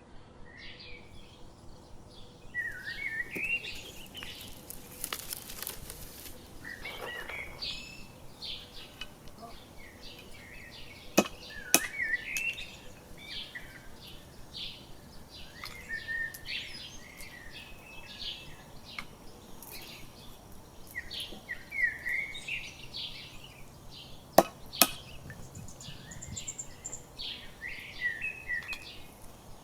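Small birds chirping and singing in quick short phrases throughout, with two pairs of sharp knocks, one about eleven seconds in and one about twenty-four seconds in.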